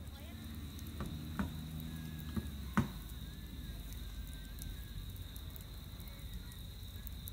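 Wood campfire burning in a fire ring, crackling, with a few sharp pops between about one and three seconds in, the loudest near three seconds. A steady high thin tone sits over it.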